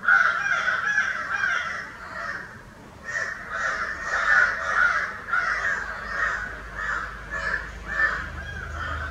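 Crows cawing over and over, harsh calls coming about two or three a second with a short lull around three seconds in.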